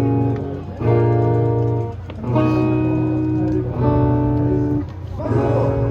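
Live band playing a song's instrumental intro: guitar chords over a bass guitar, each chord held about a second with short breaks between them.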